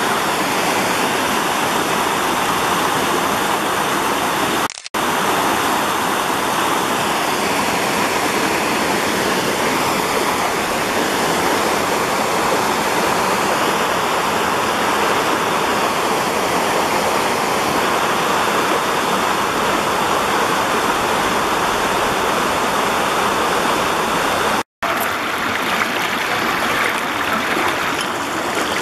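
Woodland brook water running over rock ledges and small cascades: a steady rush of whitewater that drops out for a moment twice, about five and twenty-five seconds in.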